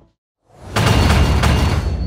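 Logo-reveal sound effect: after a moment of silence, a loud whoosh with a deep rumble swells in about half a second in and stays loud.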